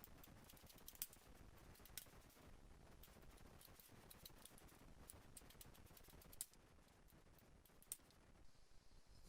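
Faint, irregular light clicks and ticks, like small tools or parts being handled, with a few sharper clicks standing out.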